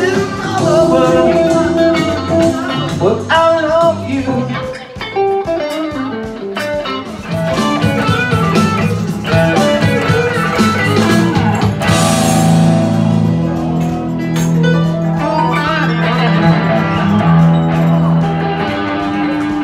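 Blues-style live music led by an electric guitar, with bending, sustained notes over a band and a sudden crash about twelve seconds in.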